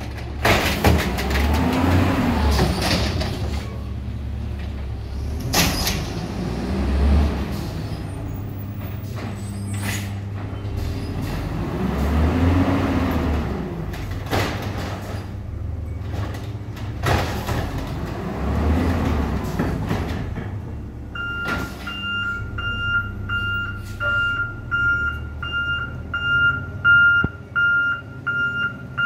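Natural-gas Waste Management Autocar WX with an Amrep automated side loader, its engine revving up and falling back four times as it runs the packer on a load of trash, with a few short sharp noises in between. About two-thirds of the way through, the truck's reversing alarm starts beeping steadily.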